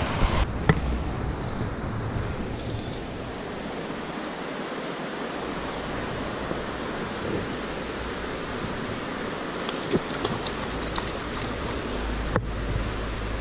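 Steady hiss of rain falling on a small river, with a few sharp ticks scattered through it.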